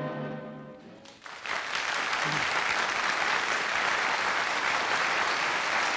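A held chord of music fades away, then a studio audience breaks into steady applause about a second and a half in.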